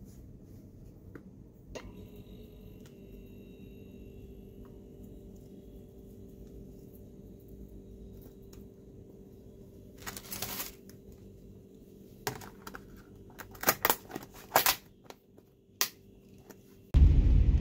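Clear plastic lunch box being handled and its lid pressed down: a run of sharp clicks and crackles over a faint steady hum. Near the end a sudden loud rumble cuts in, the sound of a ferry ride.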